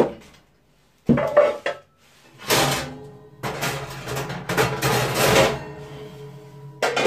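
Kitchen oven being opened and switched on: several bursts of metallic clatter from the door and racks, then a steady low hum that starts a couple of seconds in and keeps running.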